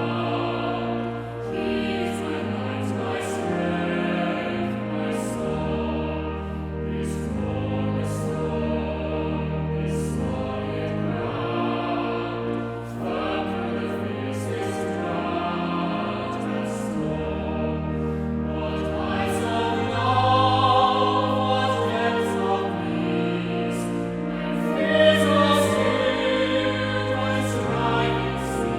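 Choral music: a choir singing slowly over sustained, held chords, swelling louder about two-thirds of the way through.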